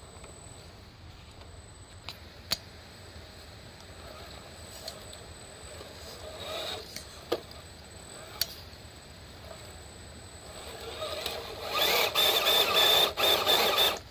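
RC4WD Trail Finder 2 Mojave II scale crawler driving on a trail. A few sharp knocks and clicks come early, then its electric motor and gears whine in loud, choppy bursts over the last few seconds as it works over the terrain.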